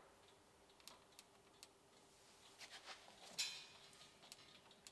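Faint, irregular metallic clicks as a key turns the slack adjuster on an AEC Routemaster's front drum brake, winding the brake shoes out toward the drum; one click about three and a half seconds in is louder than the rest.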